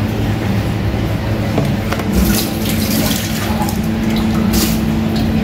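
A metal spatula scraping and smearing soft frosting around the side of a cake, a wet, even swishing with a few sharper scrapes, over a steady low hum.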